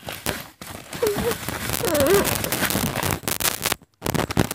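Close rustling and crackling with many small clicks, like handling noise, with two short wavering pitched sounds about one and two seconds in. The sound cuts out for a moment near the end.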